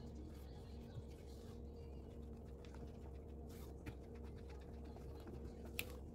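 Spatula stirring thick brownie batter in a stainless steel saucepan: soft scraping with a few light ticks against the pan, the sharpest near the end, over a steady low hum.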